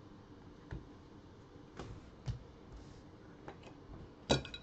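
Scattered light clicks and taps from trading cards and small objects being handled and set down on a table, with the loudest, sharpest clack near the end.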